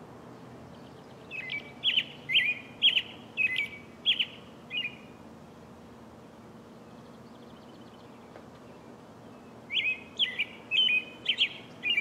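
American robin singing: a run of about seven short, clear whistled phrases, roughly two a second, then a pause of several seconds, then another run near the end. A faint steady low rumble lies underneath.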